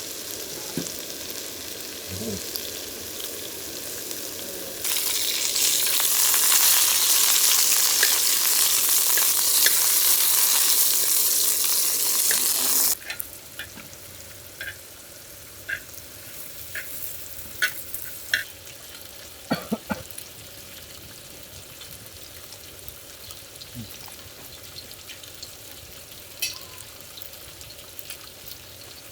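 Pork belly and vegetables sizzling as they cook, a steady hiss that grows much louder about five seconds in and drops off suddenly a few seconds before the halfway mark. After that a quieter sizzle runs on with scattered sharp pops.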